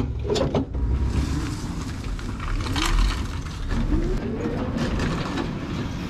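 Electric tricycle's motor whining up and down in pitch as it pulls away, after a few clicks from handling the vehicle, with strong wind rumbling on the microphone.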